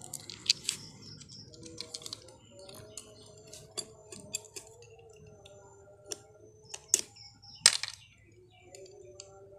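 Irregular sharp clicks and cracks of a knife cutting into snail shells, with two louder cracks a little past two-thirds of the way through.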